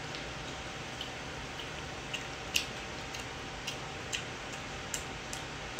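Scattered light clicks and taps of tableware, about ten at uneven intervals, over a steady low hum; the sharpest click comes about two and a half seconds in.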